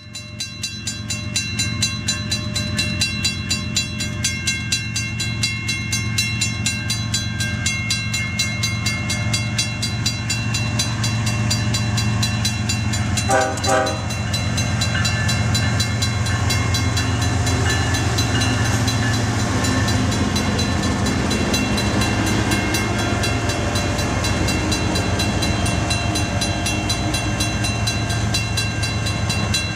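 Diesel freight train running past, its diesel-electric locomotive engines running steadily with a fine even rhythm. A brief tone sounds about 13 seconds in.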